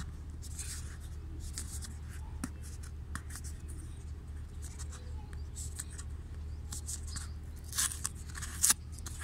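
Fingernail scratching and picking at a paper security seal sticker on a cardboard box: scattered small ticks and scrapes, with two louder scrapes near the end as the seal starts to lift.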